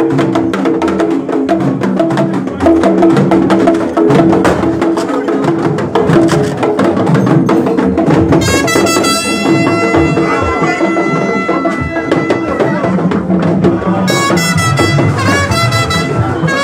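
Loud band music with drums and percussion. About halfway in, sustained high instrument notes, brass-like, join in and carry on in phrases to the end.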